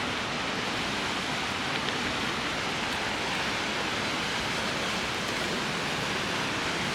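Steady rush of river water pouring through a rocky cascade, an even hiss with no breaks.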